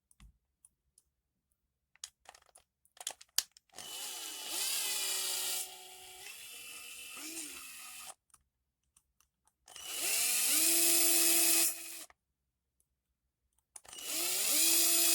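Small cordless drill-driver run in three bursts, each spinning up and then holding a steady whine, driving screws back into a small RC truck chassis. A few light clicks of parts being handled come before the first burst.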